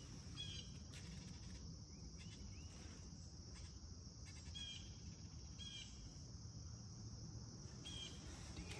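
Faint birds calling: short high chirps, some rising and bending, repeated every second or two over a low steady background rumble.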